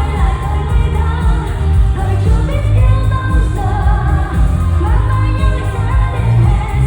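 Live Vietnamese pop music from a full band with a heavy bass line, with singing over it.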